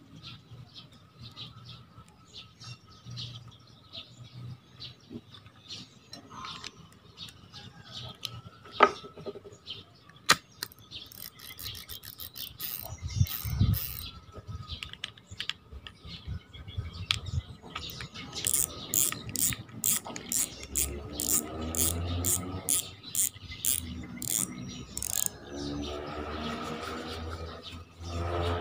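Fugu Tora 4000 spinning reel being put back together by hand after greasing: scattered small metallic clicks and taps as its parts are fitted. Just past the halfway mark comes a run of quick, even clicks, about three a second, lasting several seconds.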